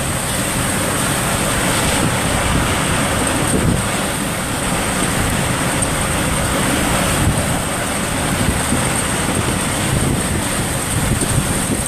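Hurricane-force eyewall wind, a loud continuous rush with a gusting low rumble, buffeting the car and the microphone.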